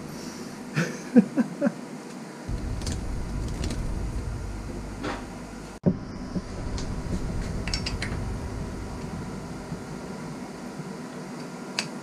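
Light metal clinks and clicks as an aluminium workpiece is handled and set into a lathe's four-jaw chuck, over a steady low hum that breaks off abruptly about six seconds in.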